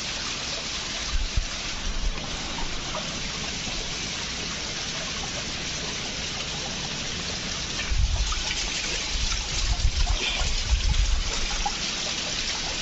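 Water trickling and running over rock into a rock pool, a steady hiss. In the last third, a run of low, irregular rumbling thumps.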